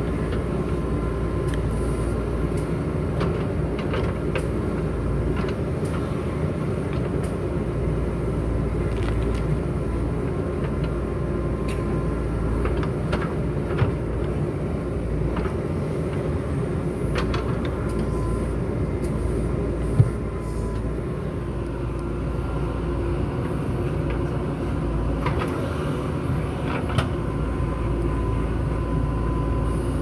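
JCB 3DX backhoe loader's diesel engine running steadily under load as the backhoe arm digs and dumps soil. Scattered clanks and knocks from the bucket and arm run over the engine, with one sharper knock about two-thirds of the way through.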